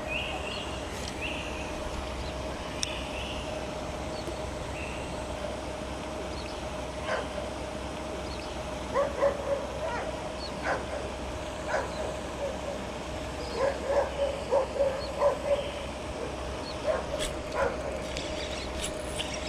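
A dog barking in several short runs of barks, over a steady hum.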